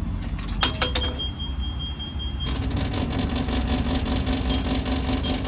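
A couple of clicks and a steady high beep, then, about two and a half seconds in, a small electric air compressor (tyre inflator) starts and runs with a fast, even mechanical chatter, pumping up a tyre that is low on air.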